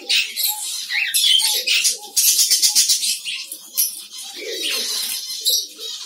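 Diamond doves fluttering and scrabbling in a wire breeding cage as a hand reaches in to catch one, with light rattling and short bird calls.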